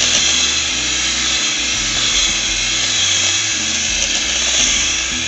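Electric hand mixer running steadily at speed, its metal beaters whipping cream in a bowl; a loud, even whir. The cream is thick and close to stiff.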